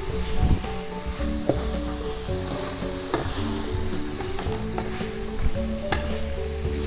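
Stir-frying in a steel wok: oil and spice paste sizzling while a metal spatula scrapes and clicks against the pan, with diced tempe being tossed in the oil. Soft background music runs underneath.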